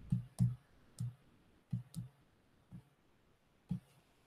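Computer mouse clicking: about eight sharp, irregularly spaced clicks, each with a short dull thud.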